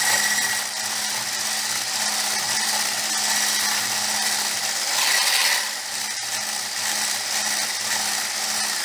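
Electric hand beater with a whisk attachment running steadily with a constant motor hum as it whips fresh cream in a plastic bowl.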